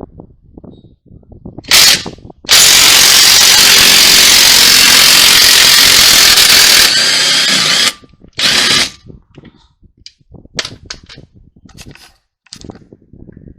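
Power impact wrench with a 22 mm socket undoing the strut-to-knuckle bolts: a short burst, then one long burst of about four seconds, then another short burst, followed by light metallic clinks of the loosened bolts and tools.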